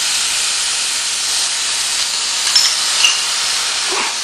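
Steady hiss of compressed air from the punching press's pneumatic strip feeder, with three light clicks in the second half as the feeder's parts are handled.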